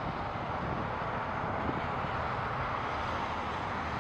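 Distant jet engine noise from a Boeing 767 freighter moving along the runway: a steady rushing sound with a low rumble beneath.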